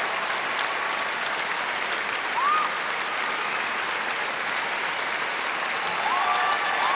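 Large concert-hall audience applauding steadily, with brief pitched calls rising over the clapping about two and a half seconds in and again near the end.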